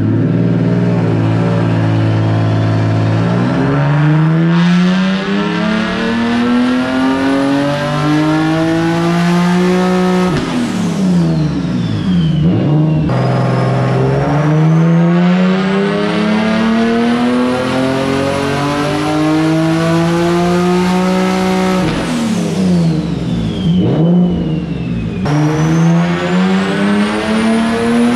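Single-turbo stock-block VQ37HR V6 of an Infiniti G37 coupe making full-throttle pulls on a hub dyno: the engine climbs steadily in pitch through the revs for seven to nine seconds, twice, dropping sharply after each pull, and a third pull starts near the end. A thin turbo whistle rises with each pull and falls away as the turbo spins down after the throttle closes.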